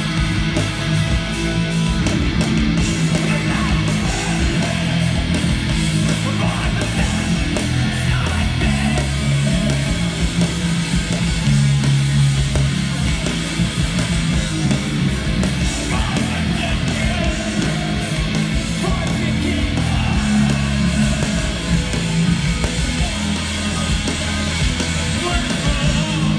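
Hardcore punk band playing live: loud distorted electric guitars, bass and drums.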